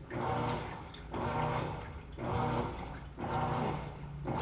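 Top-load washing machine agitating a load in water: a rhythmic swish and motor hum that swells and eases about once a second as the agitator turns back and forth, water sloshing with each stroke.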